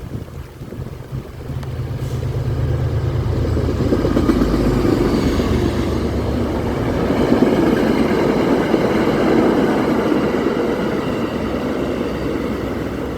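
MBTA commuter train, a diesel-hauled push-pull set, passing: the locomotive's engine hum and the rumble of wheels on rail swell from about two seconds in, stay loud through the middle and ease off near the end. Strong wind and rain beat on the microphone.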